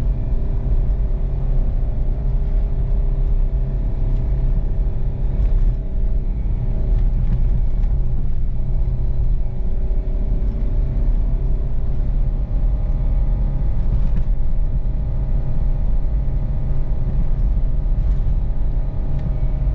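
Four-wheel-drive vehicle driving on a snowy, unpaved track: steady engine and tyre rumble, with a few faint knocks from the rough surface.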